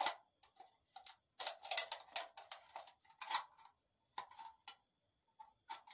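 Thin aluminium beer can being cut with a small scissors-like hand tool: short irregular snips and crinkling of the can wall, with a brief lull near the end.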